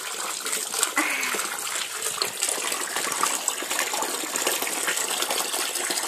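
Water pouring from a pipe into a plastic basin, with a small long-haired dog splashing and paddling in it: a steady rush of water dotted with many short splashes.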